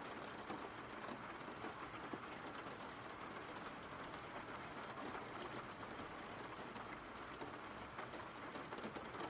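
Steady rain falling, a soft even hiss with faint drop ticks, used as a rain-sound ambience track.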